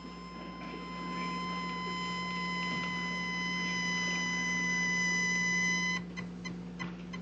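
A steady, high electronic beep tone held as one long note with overtones, swelling a little and then cutting off suddenly about six seconds in, followed by faint, evenly spaced ticks.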